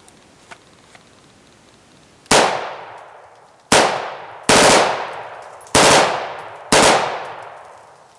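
AR-15 rifle with a Slide Fire stock being bump-fired: five loud strings of rapid shots, each brief and trailing off in echo, the first about two seconds in.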